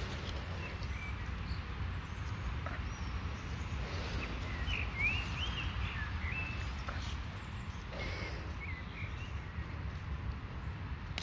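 Small birds chirping in short, quick calls, most of them in a cluster around the middle, over a steady low rumble.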